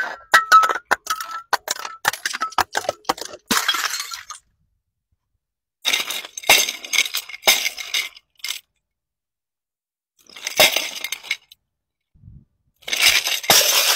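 Glass containers tumbling down concrete steps, among them a glass jar packed with die-cast toy cars: rapid knocks, glass clinking and breaking, and rattling come in several bursts with dead silent gaps between them.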